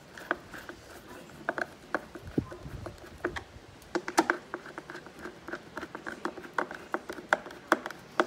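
Hand tool tightening the screws of a board's binding plate: a run of irregular small metal clicks and taps, some ringing briefly.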